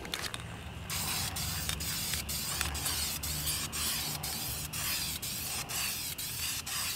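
Aerosol can of silver Dupli-Color High Performance Wheel Coating spraying onto an alloy wheel. A steady hiss starts about a second in and is broken by short gaps about four times a second, as the paint goes on in quick passes.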